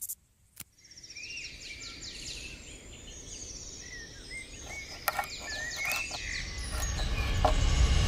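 Two sharp clicks, then birds chirping and singing in a woodland, many calls overlapping. Over the last couple of seconds a low rumble swells up.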